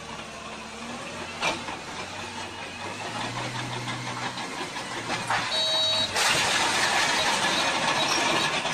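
Crawler bulldozer's diesel engine running as the machine pushes into a brick wall, its low hum rising in pitch about three seconds in. From about six seconds in a louder, steady rushing noise takes over.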